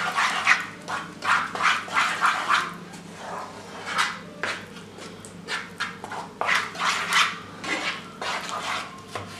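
A spoon stirring and scraping through thick grated-tomato sauce in a frying pan, in a run of short rasping strokes about every half second.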